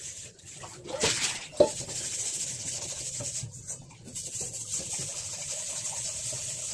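Dishwashing at a kitchen sink: rubbing and scraping of dishes, a sharp knock about one and a half seconds in, then a steady hiss of running water.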